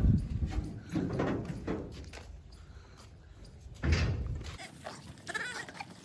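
Goats bleating.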